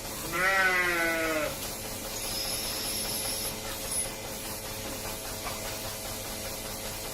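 A calf bawling once, a wavering bleat-like call lasting just over a second.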